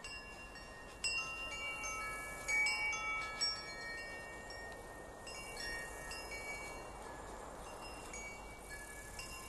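Wind chime ringing: several tuned tubes struck at irregular moments, each note ringing on and fading, with the most strikes in the first few seconds.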